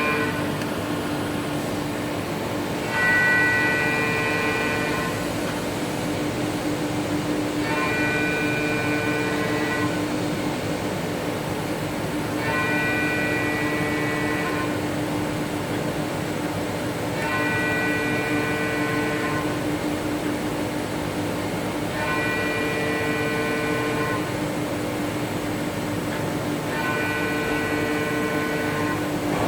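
Mazak Nexus 4000-II horizontal machining center running, with a steady hum under a pitched whine. The whine lasts about two seconds and comes back six times, roughly every four to five seconds, typical of an axis traversing back and forth in a test cycle.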